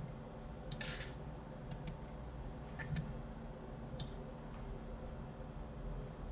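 Six or seven sharp clicks of a computer mouse, some in quick pairs, stopping about four seconds in, over a faint steady hum.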